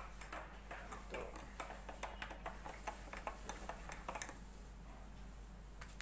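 Light, irregular clicks and taps of kitchenware, several a second, which die away about four seconds in.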